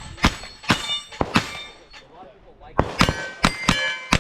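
Pistol shots fired in two quick strings, several of them followed by the ringing clang of steel targets being hit.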